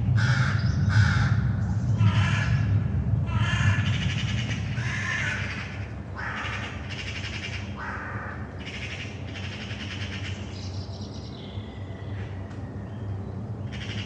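Crows cawing over and over, harsh calls coming about once a second and thinning out in the second half. Underneath, a low aircraft-engine rumble is loudest in the first five seconds or so, then eases off.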